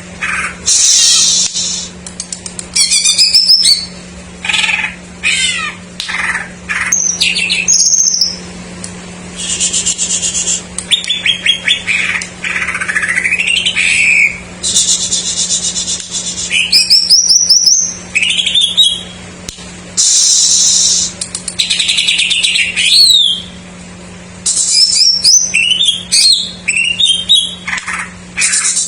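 Greater green leafbird (cucak ijo) singing a long, varied song of rapid trills, sweeping whistles and buzzy phrases, broken by short pauses and filled with imitations of other birds' songs. It is the lure song used to set reluctant caged songbirds singing. A steady low hum sits underneath.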